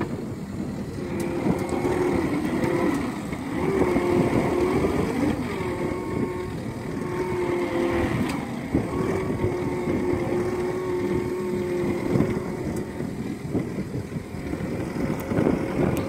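Compact track loader's engine and hydraulics working a backhoe attachment as it digs and lifts a bucket of soil, with a whine that rises and falls in pitch under the changing load.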